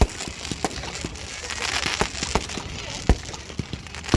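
Fireworks going off in a display: a series of sharp bangs, the loudest at the start and about three seconds in, with crackling and a hissing burst about two seconds in.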